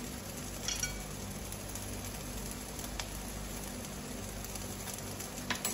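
Seafood marinara sauce simmering in a non-stick frying pan: a steady low sizzle, with a few faint clicks.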